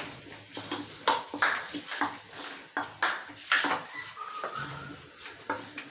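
Metal spoon scraping and clinking against a stainless steel bowl in short repeated strokes, about two a second, as chopped onion and dry spices are mixed together.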